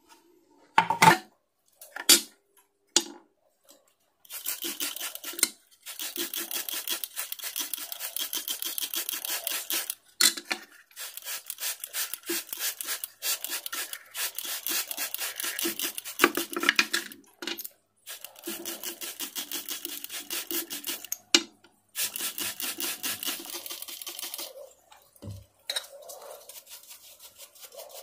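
Fast scraping strokes by hand, many to the second, in runs of a few seconds broken by short pauses. A few sharp clicks come first, and the scraping fades to faint handling noise with a single low knock near the end.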